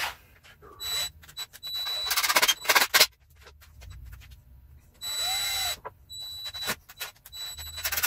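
Cordless drill/driver run in short bursts while driving screws into wood. A thin, high whine comes and goes, and there is a rapid rattle in the loudest burst about two seconds in.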